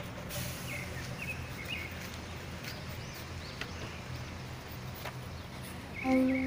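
Open-air market ambience: a steady low background hum with a few faint bird chirps, then music with long held notes starts near the end.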